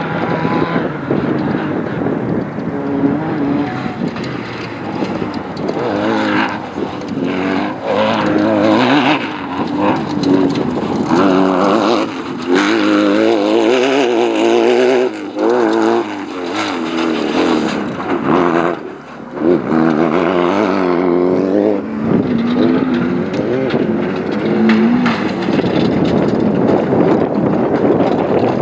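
Off-road race vehicle's engine running hard, its pitch rising and falling again and again as it revs up and eases off, with a few sharp knocks mixed in.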